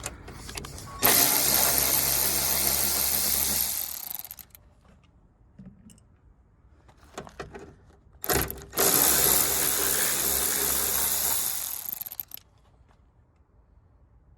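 A small electric motor runs twice, each time for about three to four seconds with a steady hum, with a few small clicks in between.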